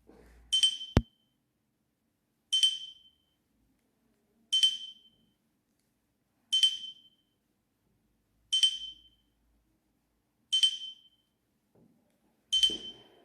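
Nokia E66 mobile phone playing a short alert tone from its loudspeaker: a brief high ping that fades quickly, repeating every two seconds, seven times. A sharp click comes about a second in.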